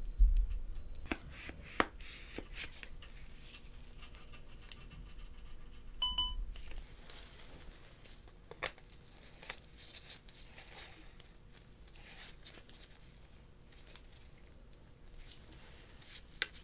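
Handling of a DJI OM 5 gimbal: scattered soft clicks and knocks of its plastic handle, tripod legs and metal extension rod. A short electronic beep sounds once about six seconds in.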